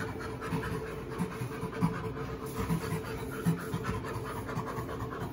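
Chimpanzee play laughter: quick, breathy panting in a rough rhythm from two chimpanzees wrestling in play.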